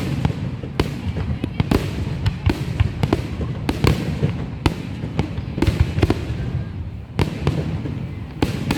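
Fireworks going off: many sharp bangs in quick, irregular succession over a constant low rumble.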